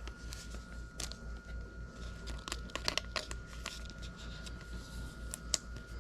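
Hockey cards and their foil pack wrapper being handled: soft crinkling with scattered small clicks and crackles as the cards are shuffled to the next one.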